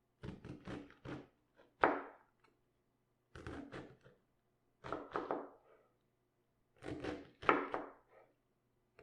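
Knife cutting cabbage on a wooden cutting board: short runs of three to five quick dull chops, with pauses of about a second between runs.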